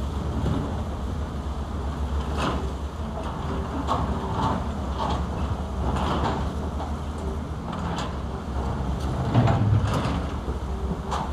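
Diesel engines of several Caterpillar and Zoomlion crawler excavators running under load, with irregular scrapes and clanks every second or two as their steel buckets dig into broken concrete and rubble. The heaviest knock comes near the end.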